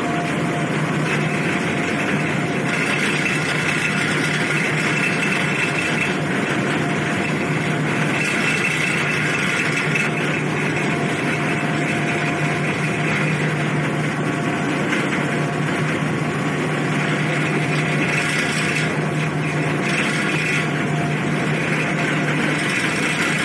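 Car ferry's engines running steadily under way, a constant low drone with a mid-pitched hum on top, heard from the open stern deck together with the rush of the churned wake.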